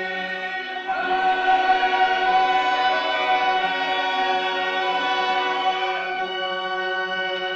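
Operatic chorus singing long, held chords, with a new chord entering about a second in.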